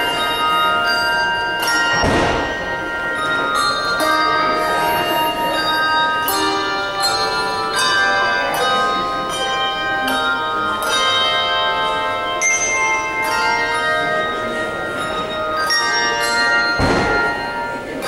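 A handbell choir playing a piece in a large room: many handbells struck in turn and together, their notes ringing on and overlapping into chords.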